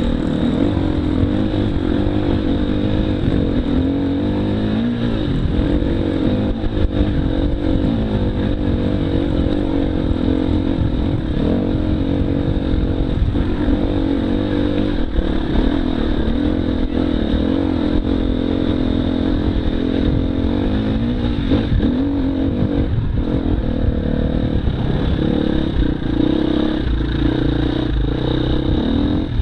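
Husqvarna FE250 single-cylinder four-stroke enduro motorcycle engine riding off-road, its pitch rising and falling over and over as the rider works the throttle and gears.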